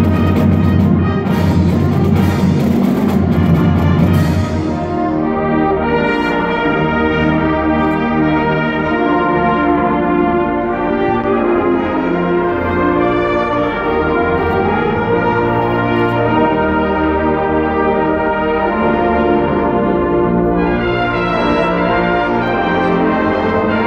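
High school marching band playing live: heavy drum and cymbal hits under the full band for about the first four seconds, then the brass section holding long sustained chords, swelling brighter again near the end.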